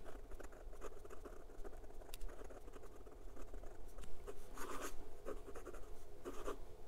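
Extra fine steel nib of a Hongdian N1S fountain pen writing on Clairefontaine 90 gsm paper: faint scratching of pen strokes, with a few louder strokes near the end.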